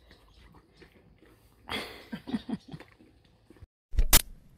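Horse chewing a treat with soft, scattered crunches. About halfway through comes a sudden loud noisy burst, followed by a few short low sounds. Near the end the sound cuts out and there is a loud thump.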